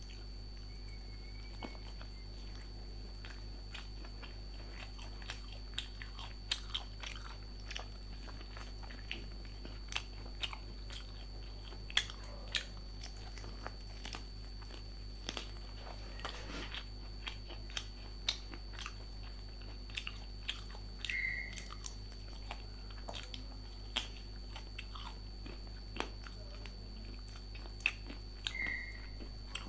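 Close-miked chewing and biting of food, with many small crunches and wet mouth clicks at irregular intervals, over a steady background hum.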